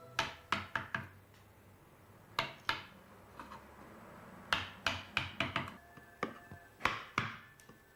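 Irregular sharp taps and knocks of hand tools on hard material, coming in small clusters: several in the first second, two a little after two seconds in, and a quicker run in the second half.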